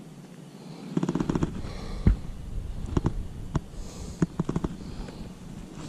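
Close, sharp knocks and clicks: a quick crackling rattle about a second in, then single knocks at uneven intervals, the loudest about two seconds in.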